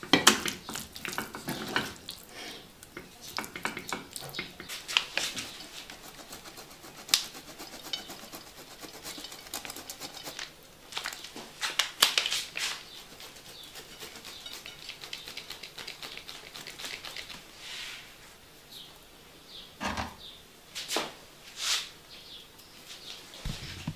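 Kitchen handling sounds: irregular clinks and scrapes of a pan, plates and utensils, with hard cheese rasped over a hand grater in short scratchy strokes in the middle.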